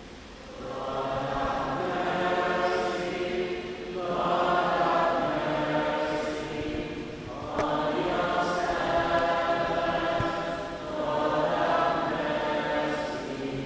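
A group of voices chanting or singing together in four long phrases of a few seconds each, each phrase swelling in and fading.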